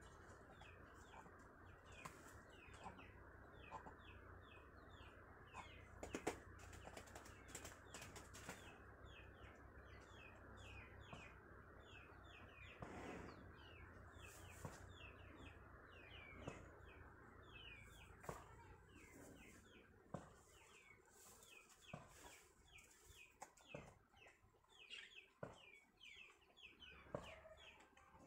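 Faint chickens peeping: short falling chirps, two or three a second, with a few sharp clicks or clucks near the end.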